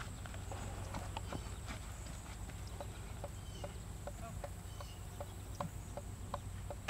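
Soft, faint hoofbeats of a ridden horse on arena sand, slowing from a trot to a walk and a halt, over a steady low hum.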